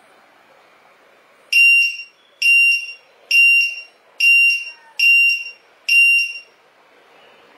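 Lost-model finder's piezo buzzer sounding its alarm: six loud, high-pitched beeps a little under a second apart, starting about a second and a half in, over a faint hiss.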